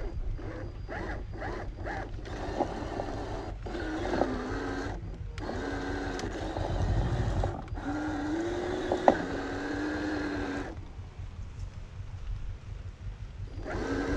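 Electric motor and geared drivetrain of an MN86K RC crawler whining under throttle. It comes first in quick short pulses, then in longer runs whose pitch rises and falls as it works through soil. It eases off for about three seconds near the end, then picks up again.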